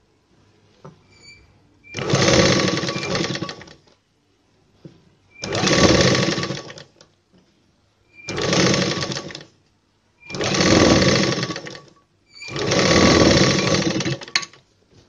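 Sewing machine stitching a seam through blouse fabric in five short runs of one to two seconds each, with brief pauses between runs.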